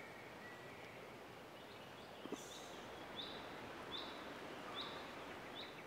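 Faint woodland ambience with a bird giving a short high call over and over, about one every 0.8 seconds, through the second half. A single faint click sounds a little over two seconds in.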